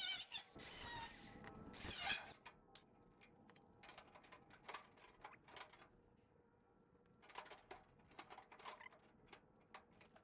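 Cordless angle grinder cutting sheet steel, a replacement Beetle body panel, for about two seconds, then it stops; after that only faint scattered clicks and taps of handling.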